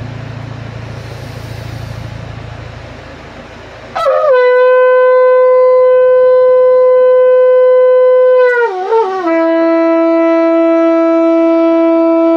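Shofar blown in one long blast starting about four seconds in: a steady held note that wavers and breaks near nine seconds, then settles onto a lower held note.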